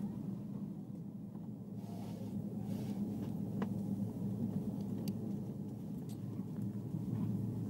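Steady low hum of an Airbus A320 cabin on the ground before departure, its air conditioning and ventilation running, with a few faint clicks from a seat belt buckle being handled.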